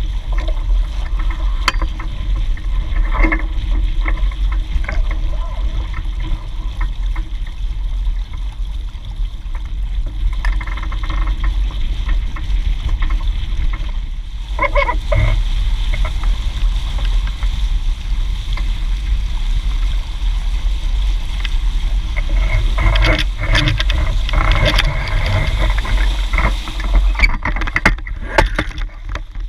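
Steady wind rumble on the microphone over water rushing and splashing past the hulls of a Hobie 16 catamaran under sail, with louder surges of spray about halfway through and near the end.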